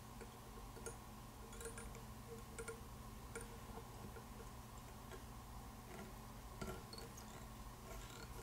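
Faint, irregular small ticks and clicks as fingers handle fine copper wire against a bead-head hook held in a fly-tying vise, over a steady low room hum.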